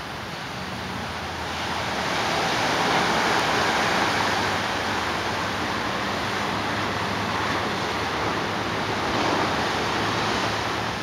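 Ocean surf breaking and washing up a sandy beach, a steady rushing noise that swells about two seconds in and again near the end.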